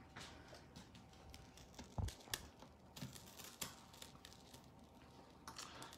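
Faint scattered clicks and taps with one soft thump about two seconds in: handling noise from a phone being picked up, moved and set down.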